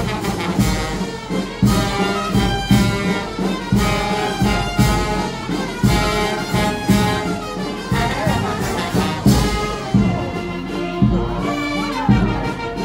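Brass band music with trumpets and trombones, playing a tune over a steady beat.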